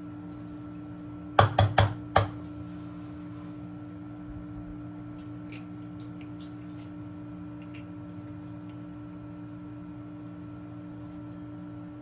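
Four sharp knocks in quick succession about a second and a half in, over a steady electrical hum, with a few faint ticks later on.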